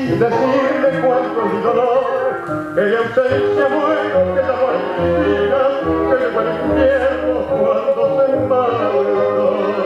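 Recorded tango vals music playing, a voice singing with vibrato over deep bass notes.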